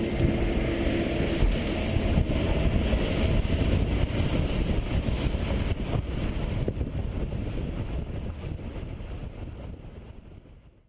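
A vehicle's engine running, with wind noise over it, fading away over the last few seconds into silence.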